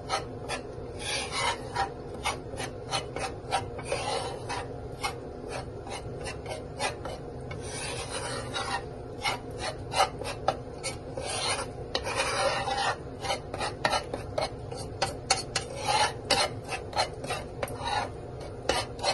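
Metal spatula scraping and pushing dry gram flour (besan) around a pan as it is dry-roasted: quick, uneven rasping strokes, a few a second.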